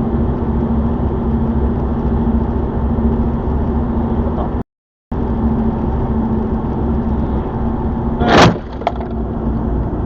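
Steady engine and road noise of a car being driven, with a low hum. It cuts out for a moment just before halfway, and about eight seconds in a loud, sudden sound cuts through.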